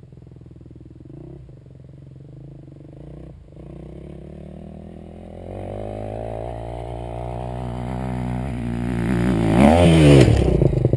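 Dirt bike engine climbing the hill toward the listener, growing steadily louder over the last several seconds. It revs hard with a sharp rise and fall in pitch as the bike takes off over the jump and passes close by, about ten seconds in. Beneath it early on is a low, steady idle from a nearby engine.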